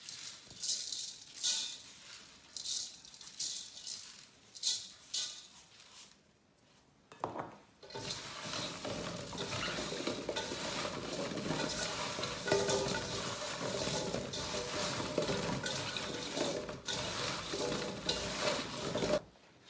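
Salt sprinkled from a scoop onto cubed radish in a large stainless-steel bowl, several short separate pours, then gloved hands tossing the radish cubes to coat them in salt: a continuous clatter and scrape of the cubes against the steel bowl from about eight seconds in, stopping abruptly near the end. This is the radish being salted for kkakdugi kimchi.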